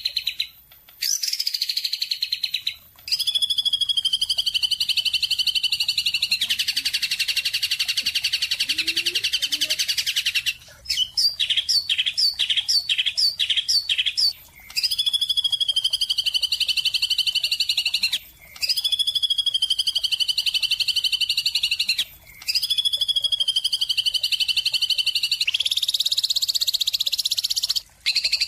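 Bird calls: long, buzzy, trilling calls that each start a little higher and then level off, repeating every few seconds with short breaks. About a third of the way in there is a quicker run of short separate notes.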